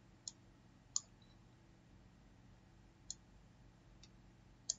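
Computer mouse clicking: four short, sharp clicks spread over a few seconds against faint steady room hum.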